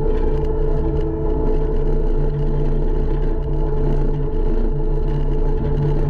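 Takeuchi TL150 compact track loader's diesel engine running steadily while the machine spreads and grades loam with its bucket.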